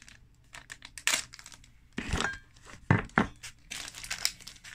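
Irregular rustling and crinkling of packaging being handled close by, with a few small knocks and clicks.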